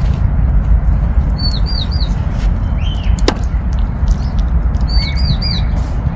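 Small birds chirping: a quick phrase of three short hooked notes, heard twice, with a lower call between them, over a steady low rumble. A single sharp click near the middle.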